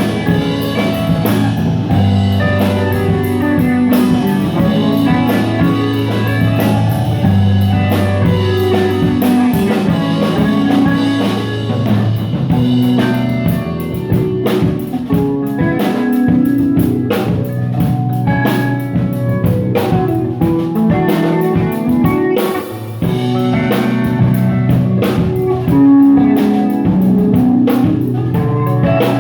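Live band playing an instrumental rock-blues groove at a sound check: guitar over a drum kit, with drum hits getting busier about halfway through.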